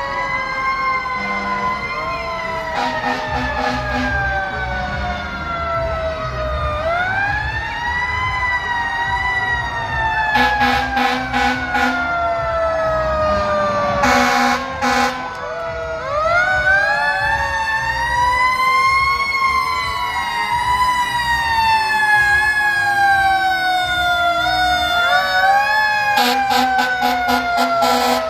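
Sirens of a procession of fire engines and emergency vehicles, several at once, winding up quickly and then sliding slowly down, about three times, over the low rumble of the trucks' engines. Short repeated air-horn blasts cut in a few times, the last near the end.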